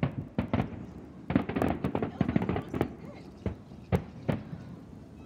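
Fireworks going off: a few sharp single bangs, then a dense run of rapid crackling pops in the middle, then more single bangs near the end.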